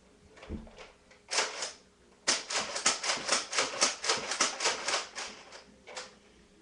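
A quick run of light plastic clicks from handling a Nerf blaster, about four to five a second for some three seconds, with a few single clicks before and after.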